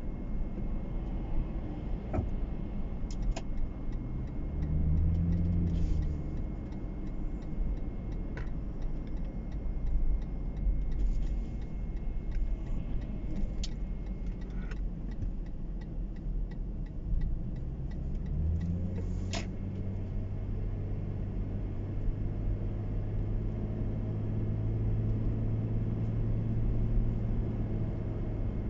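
Car engine and road rumble heard from inside the moving car's cabin. The engine note rises as the car picks up speed about two-thirds of the way through, then holds steady and a little louder. A few faint scattered clicks.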